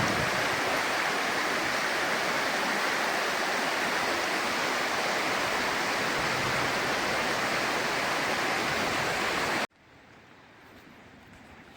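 Steady rush of flowing water, cutting off abruptly near the end.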